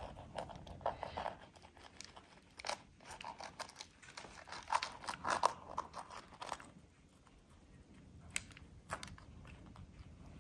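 Knife cutting through the crisp baked dough lid sealed over a pot, a run of crunching and crackling. It dies down after about seven seconds to a couple of faint clicks.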